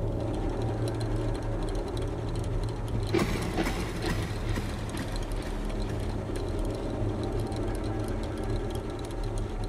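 A steady low rumbling drone with a hum, and a short rush of noise about three seconds in.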